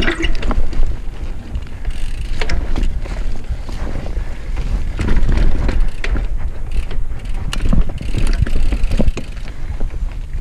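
Mountain bike riding over dirt singletrack, heard from a chest-mounted camera: a steady low rumble of tyres on dirt and wind on the microphone, with scattered clicks and rattles from the bike.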